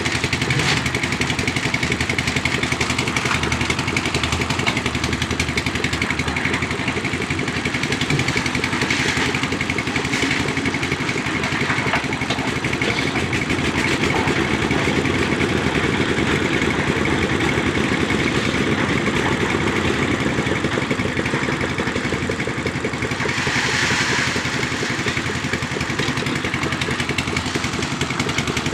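Engine of a concrete mixer running steadily.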